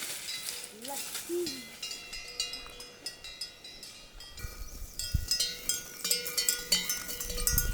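Metal bells on cattle clanking irregularly as the cows move, each strike ringing on; the clanking grows busier and louder about halfway through.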